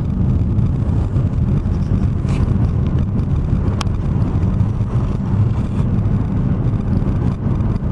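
Steady rumble of road and engine noise inside a moving car's cabin, with one short sharp click about four seconds in.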